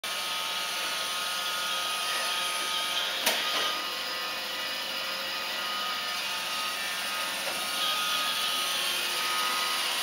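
Roomba robot vacuum running on carpet, a steady whirring hum of its motors and brushes. A single sharp click comes about three seconds in.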